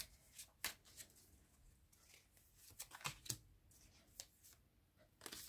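Tarot cards being handled, shuffled and drawn from the deck: faint, scattered soft flicks and rustles of card stock, a few at a time with quiet gaps between.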